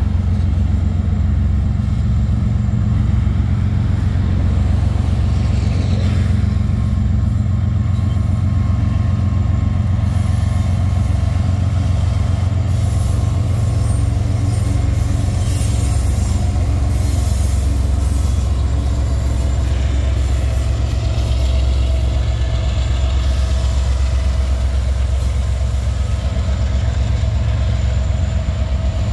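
Canadian Pacific freight train rolling past: a loud, steady low rumble of the train with some high wheel squeal around the middle.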